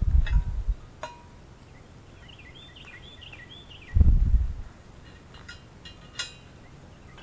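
Two loud gusts of wind rumbling on the microphone, one at the start and one about four seconds in. Between them a bird chirps a quick run of short calls, and a few light metallic clicks come from the parts of a steel mower lift being handled.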